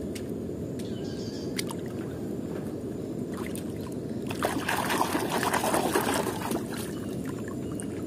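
A few light clicks early on, then water sloshing and trickling as a hand swishes a small die-cast toy car through a plastic tub of muddy water, loudest from about four and a half to six and a half seconds in.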